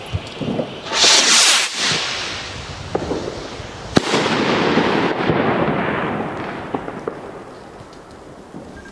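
A 2-inch shell rocket whooshes off its launch about a second in. About three seconds later its shell bursts with a single sharp bang, and the echo rolls away over the next few seconds with a few small pops.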